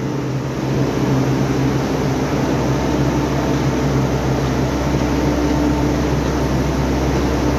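Steady machinery drone: a constant low hum with an even rushing noise over it, no rises, falls or knocks.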